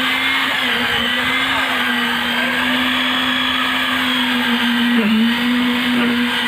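A motor on construction machinery running with a steady hum. Its pitch dips briefly about five seconds in.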